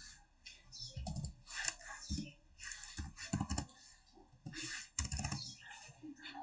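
Computer keyboard being typed on: several short runs of keystrokes with brief pauses between them, as digits are entered.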